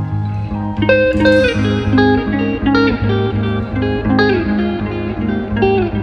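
Background music: a plucked guitar melody over steady sustained low tones.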